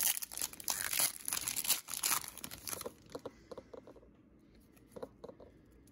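Foil wrapper of a Pokémon trading-card booster pack being torn open by hand and crinkling for about three seconds, then a few light clicks and rustles as the cards are handled.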